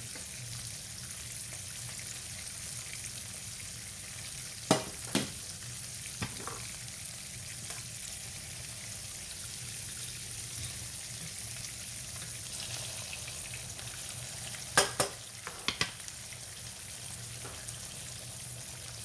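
Turkey cutlets frying in hot grapeseed oil in a skillet, with a steady high sizzle. A few sharp knocks cut in, twice about five seconds in and again in a quick cluster around fifteen seconds.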